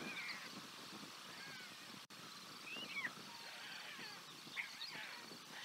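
White stork chicks begging with short, thin, mewing calls while the adult feeds them, several calls scattered through.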